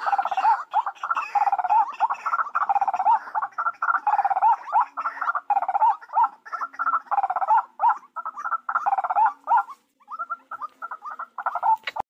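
White-breasted waterhen calling: a fast, continuous run of repeated hoarse notes with a rising-falling hook, pausing briefly about ten seconds in before resuming.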